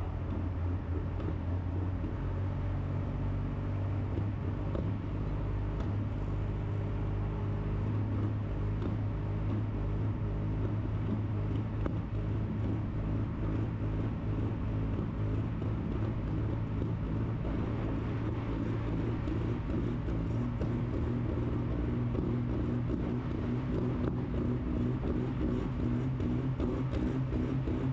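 Diesel pulling truck's engine running steadily while the truck sits hooked to the sled, pushing smoke from its stack; its pitch shifts a little higher past the middle.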